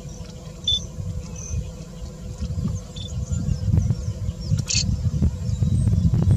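Outdoor ambience in grassland: a steady low rumble, with a few short high chirps and a brief crackle about three-quarters of the way through.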